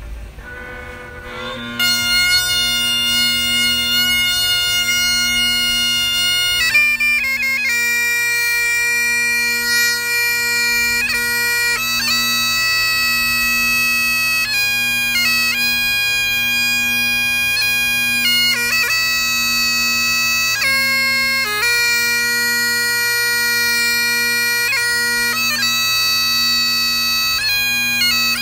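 Bagpipes being struck in: the drones come up about a second in, and the chanter joins at about two seconds. It then plays a slow tune over the steady drones, with quick grace-note flicks between the held notes.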